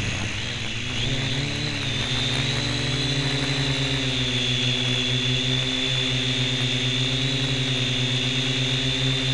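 Syma X1 quadcopter's four motors and propellers whining steadily, picked up by a camera strapped on top of it. The pitch climbs over the first couple of seconds, then holds.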